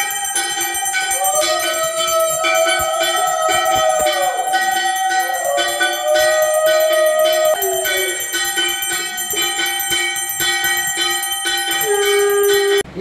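Hand bell rung rapidly and without pause, as for an aarti, with several long overlapping tones over it; each tone rises at the start and slides down at the end. The sound cuts off suddenly near the end.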